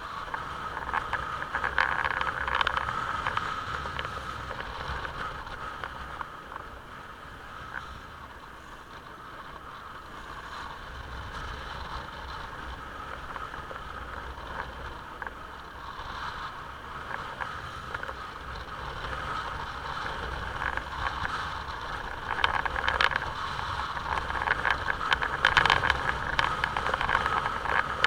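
Onboard sound of a motorcycle ride: the engine runs under a steady rush of wind and road noise, louder over the last few seconds.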